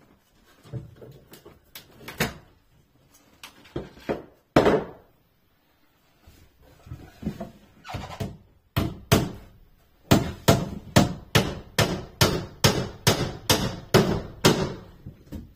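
Hammer driving nails into wooden panelling: scattered single blows at first, then a steady run of strikes at about three a second through the second half.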